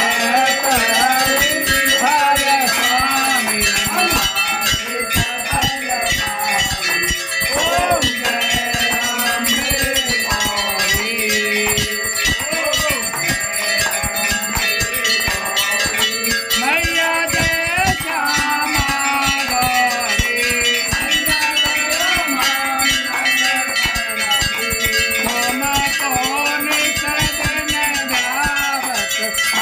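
Temple bells ringing continuously through an aarti while a group of devotees sings and claps along.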